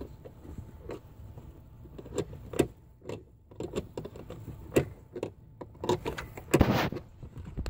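Irregular metallic clicks and scrapes of a hand tool tightening a nut onto a tail light mounting stud inside a car's trunk, with a longer, louder rub about six and a half seconds in.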